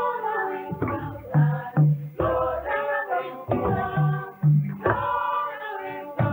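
Music: voices singing together in a choir-like way over a repeating pair of low beats, the pairs coming about every two and a half seconds.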